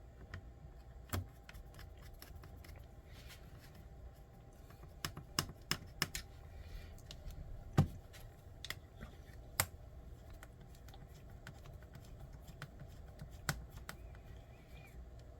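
Small metal screws and plastic kit parts clicking and tapping as they are handled during hand assembly of an RC crawler chassis: irregular sharp clicks, the loudest about eight seconds in.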